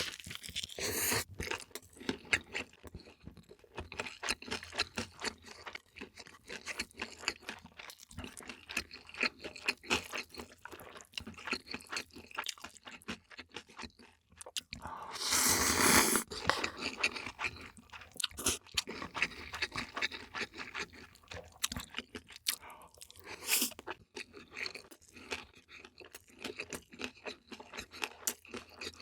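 Close-miked eating: steady chewing with crisp crunches and wet mouth clicks from crunchy food such as fried-shrimp kimbap and radish kimchi. About halfway through comes a louder, noisy rush lasting about a second and a half.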